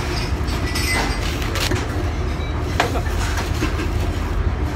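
Steady low rumble of a commercial galley's machinery and ventilation, with scattered clatters and rustles close by.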